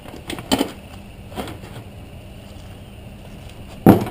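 Plastic rear fender of an ATV being pulled off and handled: a few light knocks and clatters in the first second and a half, then a loud clunk near the end as the fender is set down on concrete.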